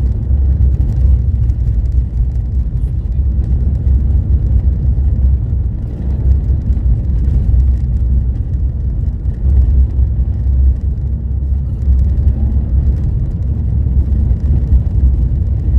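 Steady low rumble of a car's tyre and engine noise heard from inside the cabin while driving at about 35 mph.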